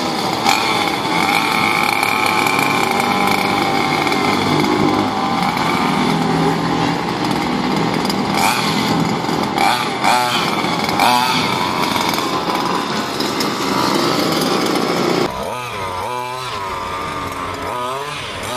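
Small two-stroke engine of a 1/4-scale RC car running and revving as the car drives, its pitch rising and falling with the throttle. About fifteen seconds in it drops in level and carries on revving.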